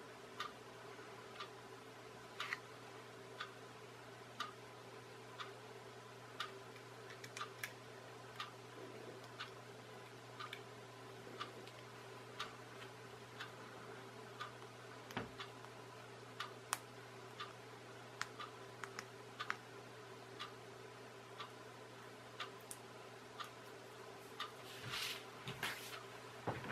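Clock ticking about once a second over a steady low hum, with a few irregular light clicks of small plastic kit parts being handled and a cluster of louder handling knocks near the end.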